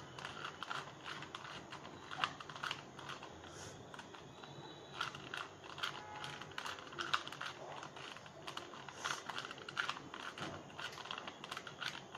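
2x2 Rubik's Cube being turned fast, its plastic layers clicking in quick, irregular runs of turns.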